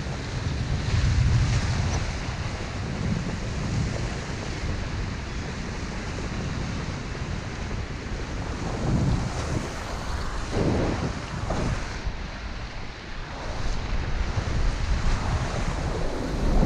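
Sea waves washing and breaking against jetty rocks, coming in swells, with wind buffeting the microphone as a low rumble.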